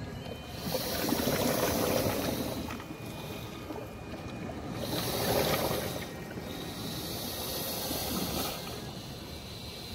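Sea water washing and lapping among shoreline rocks, a rushing sound that swells twice and then settles.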